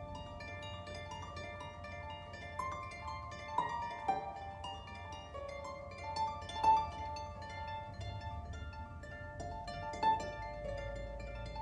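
Solo harp playing slow, meditative music: plucked notes ringing on and overlapping, with a few notes struck louder than the rest.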